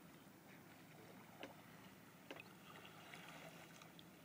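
Near silence: faint water lapping against a kayak hull on calm water, with a few soft ticks of small splashes.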